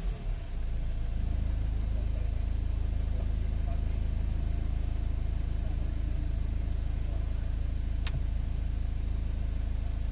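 Ford Ranger 2.2 diesel engine idling steadily after its revs drop back at the start, running after an injector rebuild. A single short tick about eight seconds in.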